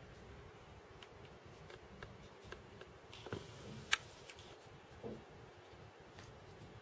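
Faint scattered ticks and scratches of a red squirrel's claws working at a plush toy and the carpet, with one sharper click about four seconds in.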